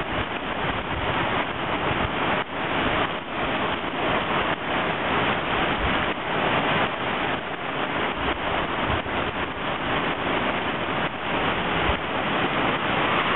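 Heavy rain pouring steadily onto a flooding street, with wind gusts now and then buffeting the microphone.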